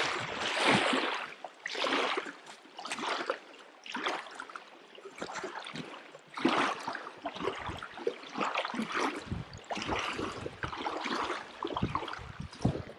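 Small wind-driven waves lapping and washing over a pebbly shoreline, coming in irregular surges about every second or two.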